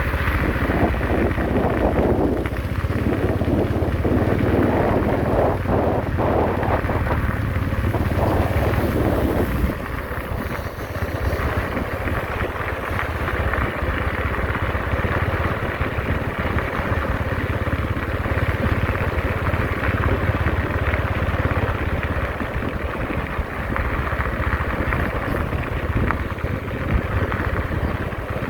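Heavy road-construction machinery engine running steadily, with a louder rough mechanical layer for about the first ten seconds that then eases off a little.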